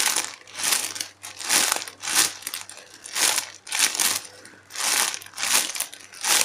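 Clear plastic packaging bag crinkling as the turtle squishy toy sealed inside it is squeezed and released by hand, over and over, about twice a second.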